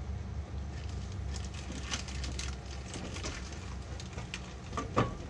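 Broth of chicken and vegetables boiling in a pan on a gas burner: a steady low burner rumble with scattered small bubbling pops, and one sharper click near the end.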